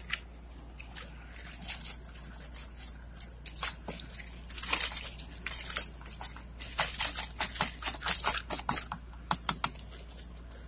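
Crawfish sliding and tumbling out of a plastic mesh basket into a metal boil pot, their shells clattering against each other and the basket in a rapid, irregular stream of clicks and crackles.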